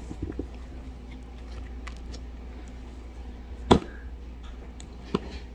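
Crystal Mud clear slime being worked by hand, giving a few sharp pops: small ones near the start, a loud one about three and a half seconds in, and a weaker one near the end.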